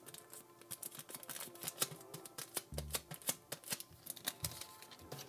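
Irregular light clicks and taps of small plastic things being handled: a clear silicone nail-art stamp and a thin clear plastic piece, with one soft thump about three seconds in.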